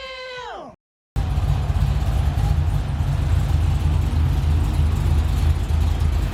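A short pitched tone slides down and cuts off into a brief dead silence, then a Cadillac CTS-V's V8 runs with a steady low rumble.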